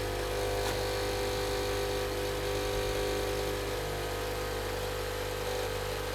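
Philips Senseo coffee maker's small electric pump buzzing steadily while it runs.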